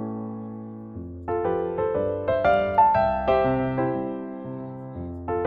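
Solo piano background music: a held chord, then from about a second in a tune of separate struck notes that each fade, with a fresh chord near the end.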